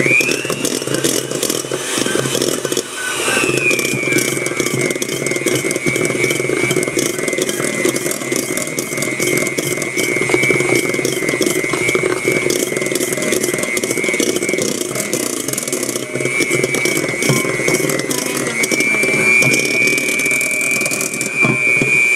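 A small electric kitchen appliance's motor running steadily with a high whine while mixing cookie dough. It starts suddenly, drops a little in pitch after about three seconds as it takes the load, rises slightly near the end, and cuts off.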